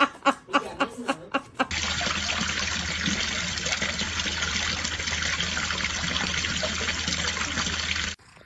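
Quick sharp clicks, about four a second, then a steady rush of running water, like a tap left on, which cuts off abruptly near the end.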